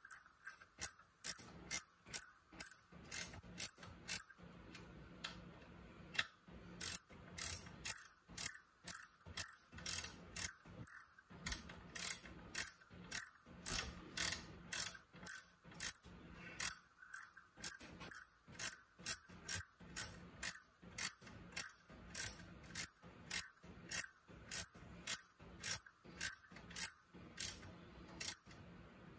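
Hand ratchet wrench clicking as the bolts joining the engine crankcase halves are turned, about two to three clicks a second in runs broken by brief pauses.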